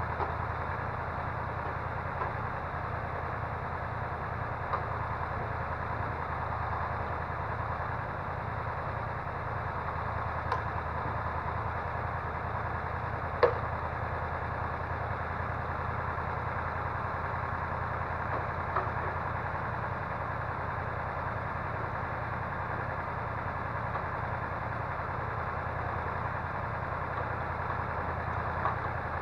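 Engine of a timber-loading crane truck running steadily, with a few faint clicks and one sharp knock about halfway through.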